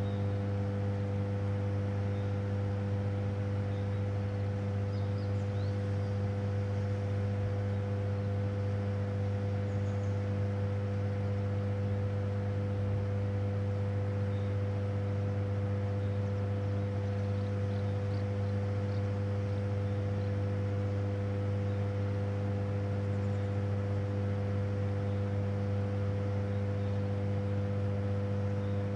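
Hydroelectric power station machinery giving a constant low electrical hum, a deep tone with a ladder of higher tones above it, unchanging throughout. Faint short high chirps sound now and then over the hum.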